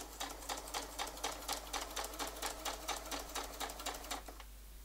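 Janome Memory Craft computerized sewing machine running a long straight stitch through patterned paper. The needle clicks evenly about five times a second over a steady motor hum, then stops near the end.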